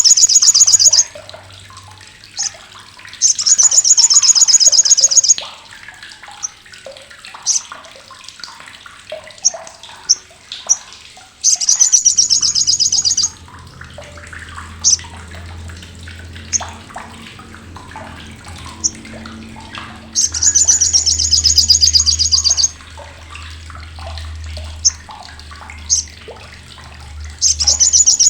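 Olive-backed sunbird (sriganti) giving its loud, harsh, sharp chattering call, the 'crecetan' used as a master sound for training songbirds. It comes in about five rapid bouts of roughly two seconds each, with single sharp chips between them, over a faint low hum.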